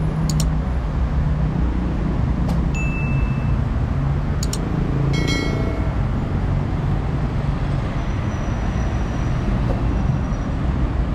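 Steady noise of city road traffic, cars passing on a multi-lane street. Over it come a few sharp mouse-click sound effects and, about five seconds in, a ringing bell chime from an overlaid subscribe-button animation.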